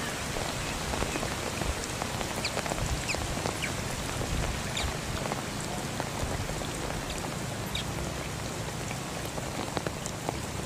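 Steady rain falling on a puddle and palm fronds, with the ticks of many individual drops through an even hiss.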